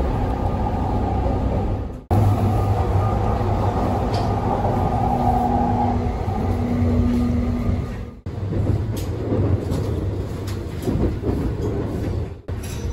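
Running noise inside the Saphir Odoriko express train on the move: a steady low rumble with a faint steady tone for a couple of seconds near the middle. The sound drops out abruptly for an instant three times.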